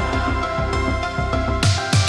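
Background music: held electronic chords with the bass and beat dropped out, the beat coming back with a hit near the end.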